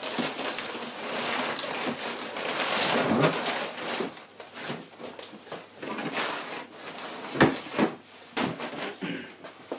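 Crumpled brown packing paper rustling and crackling as a cardboard model-kit box is lifted out of it and turned round, followed by a few sharp knocks of the box against the cardboard around it.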